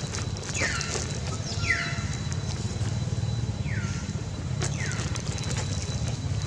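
Four short high calls, each sweeping quickly downward in pitch, come in two pairs about a second apart, over a steady low rumble.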